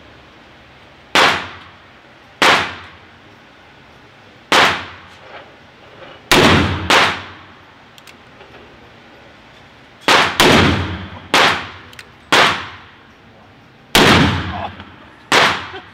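Gunshots in an indoor shooting range, about ten at irregular spacing, each followed by a ringing echo off the walls. Among them are the reports of a Smith & Wesson Model 500 revolver firing .500 S&W Magnum rounds; there are more shots than its five-round cylinder holds, so some come from other lanes.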